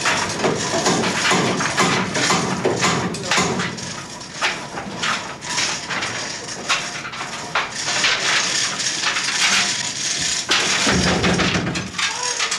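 Busy clatter of many knocks and bangs over a steady loud noise, with a heavier low thump about eleven seconds in.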